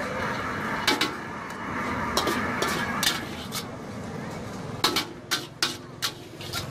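Metal ladle and spatula clanking and scraping against a steel wok as stir-fried food is scooped out onto a plate: a run of sharp metallic clinks, most close together about a second in and again near the end.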